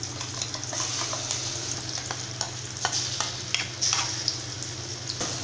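Sliced onions and curry leaves sizzling in hot oil in a metal kadai as ground masala paste is added and stirred in, with a steady frying hiss and scattered sharp clicks.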